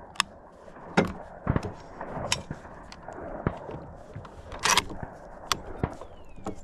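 Clicks, knocks and a short scraping rasp of a bolt-action rifle being handled on a plastic shooting rest; the sharpest knock comes about a second in and the rasp a little before five seconds. No shot is fired.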